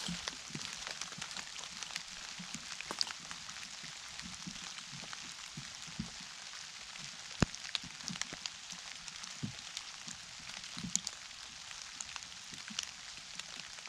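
Light rain pattering steadily, not heavy, with scattered louder drops and a few soft knocks.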